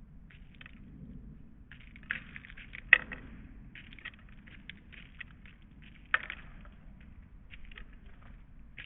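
Small birds busy at a bird feeder: quick irregular high chirps and scrabbling, with two sharp knocks, one about three seconds in and one about six seconds in.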